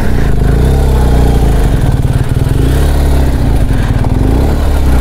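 BMW R 1250 GS Adventure's boxer-twin engine running steadily and loudly as the motorcycle rolls slowly down a rutted dirt track.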